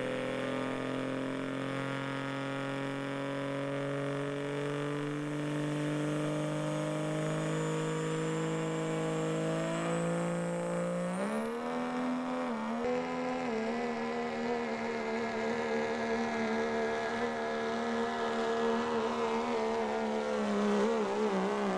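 Hot rod diesel 4x4 pulling truck's engine running hard under load down a pull track. Its note climbs slowly for about ten seconds, then jumps higher about eleven seconds in as a high whistle rises over it. It holds there and wavers near the end.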